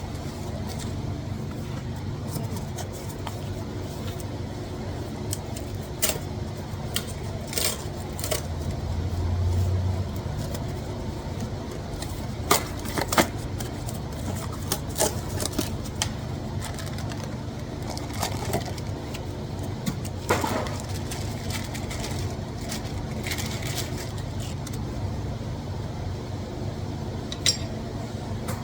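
Hand tools clinking against metal car parts: scattered sharp metallic clicks over a steady low hum, with a brief swell in the hum about nine seconds in.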